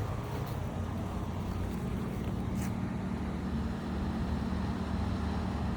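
Steady low mechanical hum with a couple of faint clicks.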